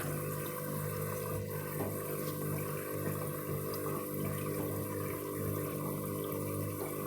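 Washing machine running an emergency rinse to clear the excess suds that caused a suds lock. Water runs and moves in the machine over a steady hum.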